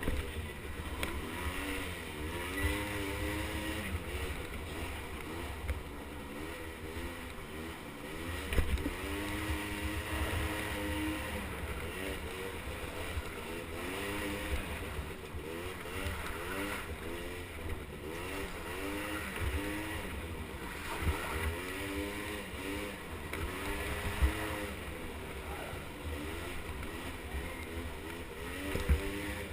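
Small 50cc two-stroke ATV engine revving up and dropping back over and over as it is ridden, with wind rumbling on the microphone.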